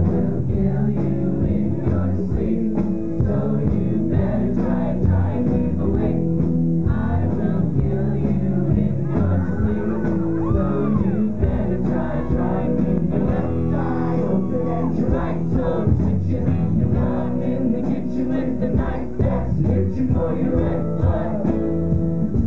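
Live rock band playing, with electric guitar, bass guitar, drums and keyboard, and a voice singing over them.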